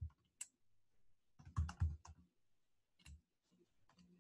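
Computer keyboard keystrokes as a word is typed: a few separate taps, then a quick run of several keys about a second and a half in, then one more tap.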